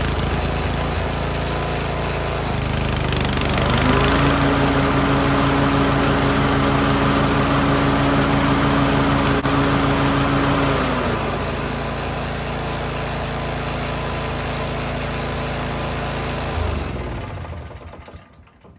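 Toro TimeMaster walk-behind mower engine running just after starting, revving up about three and a half seconds in and settling back to a lower speed about eleven seconds in, then shut off and winding down near the end. A rattle comes from the recoil starter, which the owner takes for something loose bouncing around inside it.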